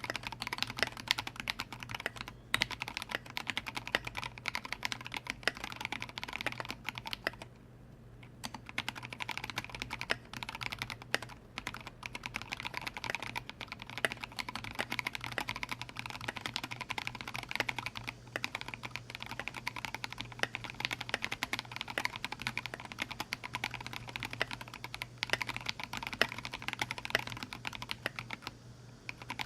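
Continuous, rapid typing on a Duck Orion V2 custom mechanical keyboard with an aluminium plate, vintage Cherry MX Black linear switches on 58 g springs and SP SA keycaps. Typing pauses briefly about eight seconds in.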